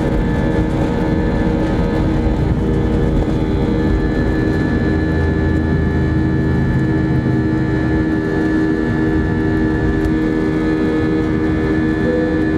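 Airbus A320 jet engines at takeoff thrust, heard from inside the passenger cabin as a loud, steady whine over a low rumble. The rumble eases about eight seconds in as the airliner lifts off and climbs.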